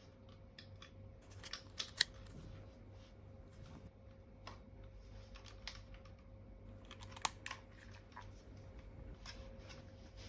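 Faint, scattered small clicks and taps, with a sharper click about two seconds in and another about seven seconds in, over a low steady hum and a faint steady tone.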